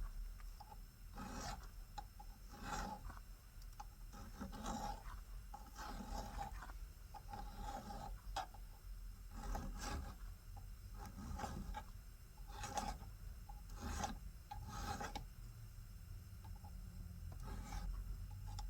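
Hand file rasping in slow, separate strokes, about a dozen of them a second or so apart, over a low steady hum.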